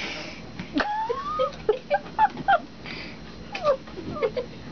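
House cat making a string of short meows and chirps, some rising in pitch, several a second.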